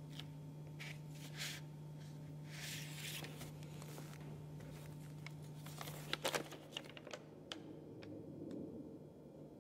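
Old paper handled at close range: loose sheets and a small book rustling and crinkling in separate strokes, with a cluster of sharp crackles about six seconds in and a few faint ticks after.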